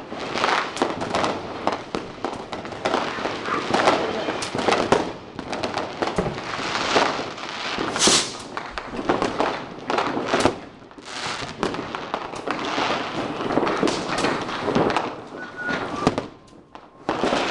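New Year's Eve fireworks and firecrackers going off on all sides: a dense, irregular stream of cracks and bangs, some close and sharp, others more distant, thinning out briefly near the end.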